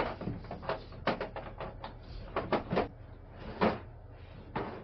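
Irregular clicks, clunks and knocks of tools and metal parts being handled while a battery is fitted back into a lawn tractor.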